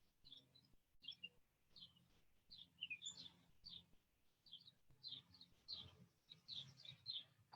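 Faint birdsong: short high chirps repeating every half second or so, a few of them sliding down in pitch.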